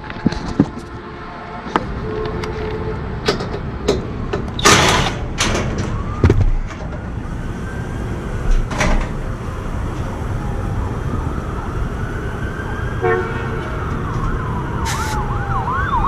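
An emergency vehicle siren: a slow rising and falling wail that starts about halfway through and switches to a fast yelp near the end. Beneath it are steady background noise, scattered clicks and knocks, and a short hiss about five seconds in.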